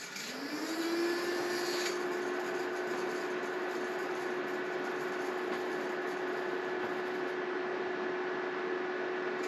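Vectrix VX-1 electric scooter's battery charger starting up as charging begins: a hum rises in pitch for about a second and then holds steady, over a rushing hiss that is brighter for the first two seconds.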